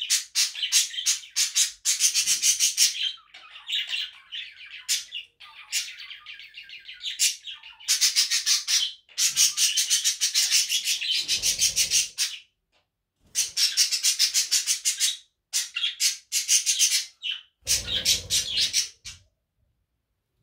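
Budgerigars chattering and warbling in fast runs of high chirps, broken by short pauses. The chatter stops about a second before the end.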